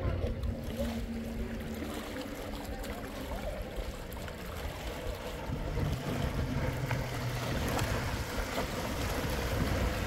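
Boat moving on water: a steady rush of water with a low rumble underneath, and a faint steady low hum in the second half.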